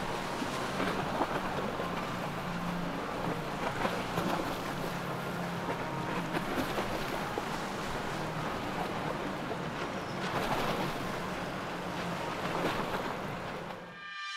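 Triple 2.5 EFI outboard motors running steadily at low cruising speed, a low engine hum over water rushing and churning in the boat's wake and the river chop.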